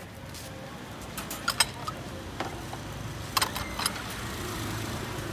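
Sharp metallic clinks of long-handled cast-iron pancake molds being handled over a charcoal grill, in two short clusters about a second and a half in and again past three seconds. Underneath, a low steady rumble that swells near the end.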